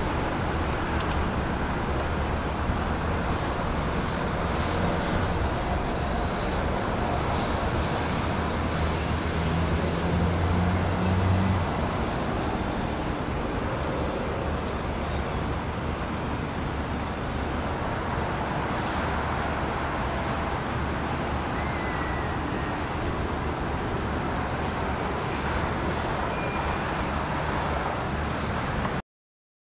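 Steady rumble of distant engines and wind, with a low hum that swells for a few seconds about ten seconds in; the sound cuts off abruptly near the end.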